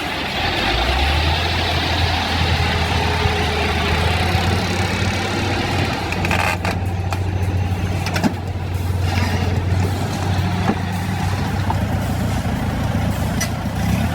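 A heavy vehicle engine runs steadily with a low hum that strengthens about a second in, and a few sharp knocks come through it.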